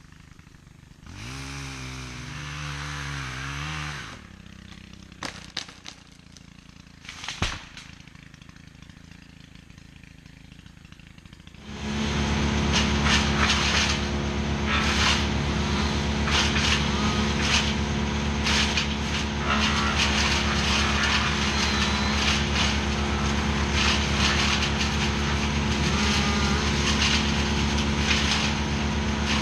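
Wood chipper's engine running steadily from about twelve seconds in, with a fast stream of sharp cracks and snaps from wood being chipped. Before it, an engine briefly revs up and down and there are a few sharp knocks.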